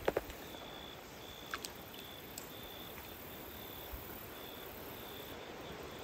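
Faint outdoor ambience beside a creek: a steady low hiss with a short, high chirp repeating at fairly even intervals of well under a second. There are a few faint clicks near the start.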